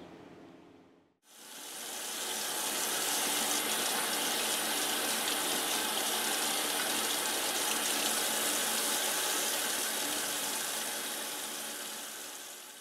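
Kitchen faucet running steadily into a sink, the stream splashing over a small round stainless steel grill grate as it is rinsed by hand. It cuts in about a second in.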